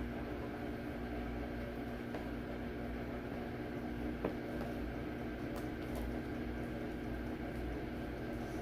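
A steady mechanical hum with a few fixed tones, like a household fan or appliance running, and one faint click about four seconds in.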